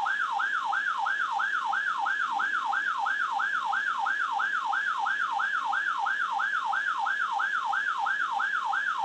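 NOAA weather alert radio sounding its siren alarm, a rapid repeating warble sweeping up and down in pitch about three and a half times a second, signalling that a severe thunderstorm warning has been received. It cuts off at the end, ahead of the spoken warning.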